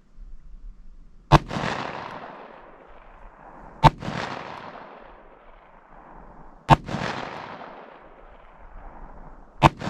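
Four shots from a Ruger Vaquero single-action .45 Colt revolver firing 185-grain Hornady Critical Defense rounds, spaced about two and a half to three seconds apart, each followed by an echo that fades over a couple of seconds.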